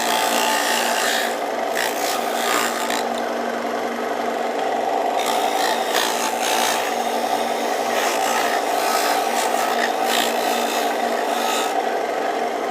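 Disc sander motor running steadily with a fixed hum, while a wooden piece is pressed against the spinning abrasive disc in several spells of gritty sanding, about a second or two each.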